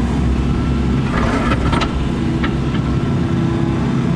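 Excavator diesel engine running steadily, heard from the operator's seat, with a few short knocks and scrapes about a second in as the machine works a thick concrete slab.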